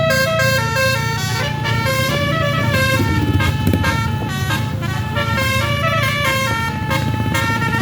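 A 36-note Basuri telolet bus horn playing a quick melody, its notes changing several times a second, over the steady low hum of the bus engine.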